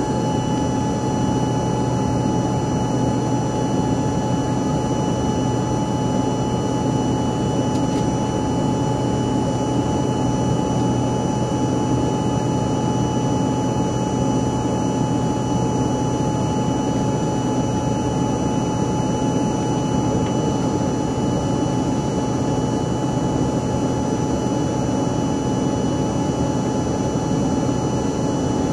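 Steady engine and airflow noise in the passenger cabin of an Embraer ERJ-145 in flight, from its rear-mounted Rolls-Royce AE 3007 turbofans: an even rushing drone with a few constant whining tones over it.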